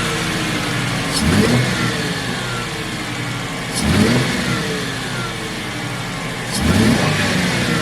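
A car engine revved three times, each rev climbing quickly and then falling slowly back toward idle, about every two and a half to three seconds.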